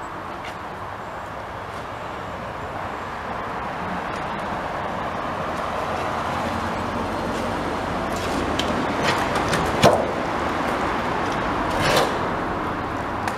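Steady rush of road traffic crossing the bridge overhead, slowly growing louder. Near the end, water splashes and drips as a heavy, waterlogged sack is hauled out of the canal on the magnet rope, with two louder splashes.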